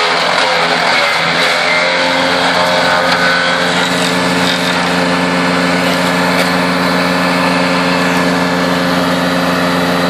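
Greenmech CS100 wood chipper's small engine running steadily at working speed, with the crackle of branches being fed into the hopper and chipped.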